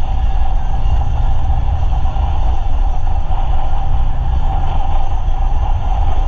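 Off-road 4x4 driving steadily on a gravel dirt road, heard from a camera on its hood: a continuous low rumble of engine, tyres on gravel and wind on the microphone, with no change in pace.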